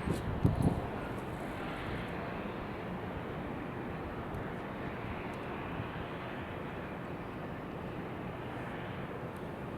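Steady outdoor wind-like noise with a low ambient rumble. A few low thumps sound in the first second.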